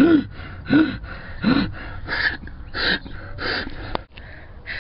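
A person gasping loudly for breath, about six gasps spaced under a second apart; the first few have a voiced rise and fall in pitch, and the later ones are mostly breathy.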